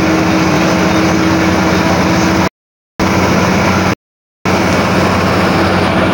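A moving vehicle's engine and road noise, a steady loud rush with a low engine hum under it. The sound cuts out abruptly to silence twice, for about half a second each, about two and a half and four seconds in.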